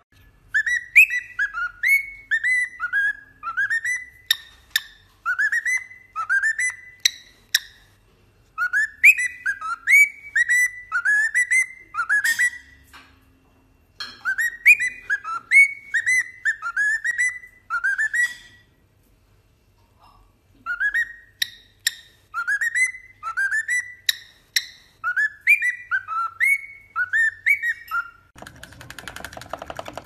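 Cockatiel whistling rapid runs of short, falling notes in phrases separated by brief pauses, with a few sharp clicks among them.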